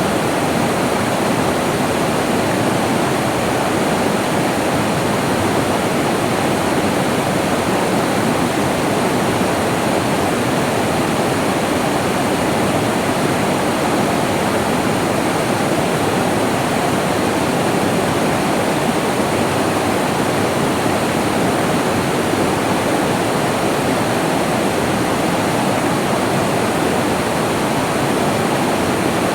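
Steady rush of flowing water in a rainforest stream, an even, unbroken sound.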